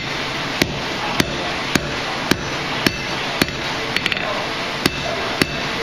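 Hand hammer striking red-hot steel bar stock on an anvil, a steady beat of just under two blows a second, with a few quick light taps about four seconds in. This is a blacksmith drawing down the jaw of a pair of forged tongs.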